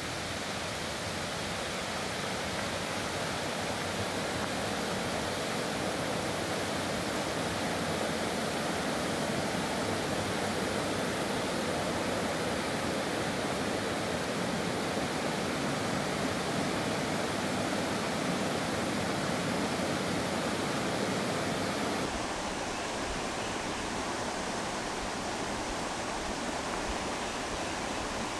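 Mountain creek rushing steadily beneath a footbridge; about three-quarters of the way through the rushing turns slightly quieter and duller.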